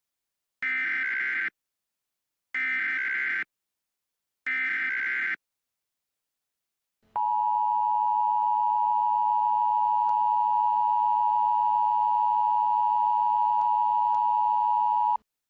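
Emergency Alert System tornado warning opening: three short bursts of the SAME digital header, a warbling data screech about a second long each and evenly spaced, then after a pause the long steady attention tone, about eight seconds, which cuts off sharply.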